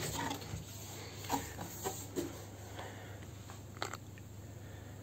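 A cardboard box being opened by hand: faint scattered rustles and a few light knocks as the flaps are folded back.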